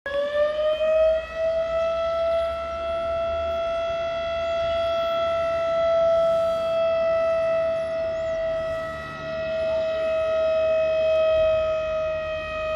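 The Votorantim siren being switched on: a single long wail that climbs in pitch over about the first second as it winds up, then holds a steady tone.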